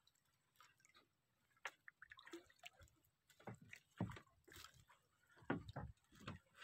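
Near silence, broken by faint scattered ticks and small drips of water at the side of a wooden outrigger boat.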